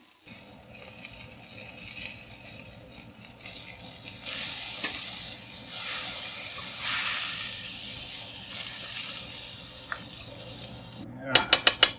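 Bratwurst sizzling in hot oil in a stainless steel frying pan while being turned with tongs; the sizzle swells in the middle and breaks off sharply near the end, giving way to a quick run of clinks.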